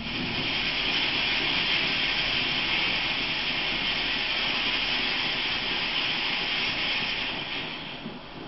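Steady loud hiss from a homemade pressurised petrol stove's burner, a modified Russian Shmel-2 (Bumblebee) burner fed from a pumped steel fuel bottle, starting abruptly and dying away near the end. The burner is flaring with a tall yellow flame, as a petrol stove does before it has warmed up.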